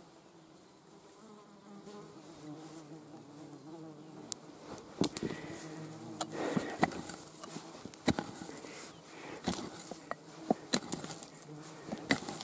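Repeated sharp knocks of a hand pick striking soil and small stones, starting about four seconds in, with a flying insect buzzing close by throughout.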